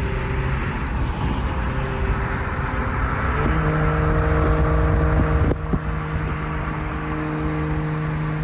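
Toyota 2JZ inline-six engine running steadily, its pitch and loudness stepping up a little about three and a half seconds in, with a brief dip about two seconds later and the pitch beginning to rise near the end.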